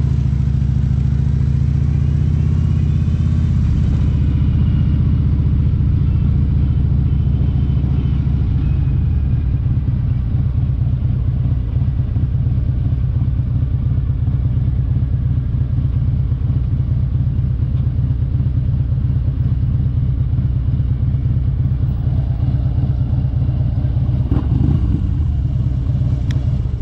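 Harley-Davidson Road King's V-twin engine pulling away and then running steadily as the bike rolls along at low speed.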